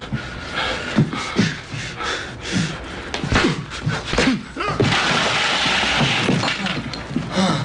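Staged fistfight between two men: a string of blows and scuffling, then a crash lasting about a second as one man is knocked to the floor.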